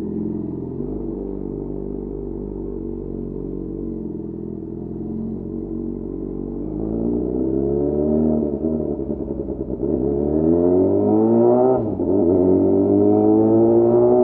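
Yamaha FZ6's 600 cc inline-four engine running low and steady, then revving up as the bike accelerates, the pitch climbing, dropping back twice at gear changes, the second time sharply, and climbing again.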